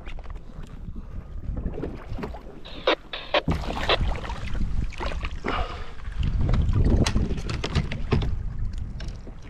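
Water splashing and knocks against the kayak as a hooked monchong (sickle pomfret) is grabbed at the surface and hauled aboard, with sharp handling clicks throughout and wind rumbling on the microphone.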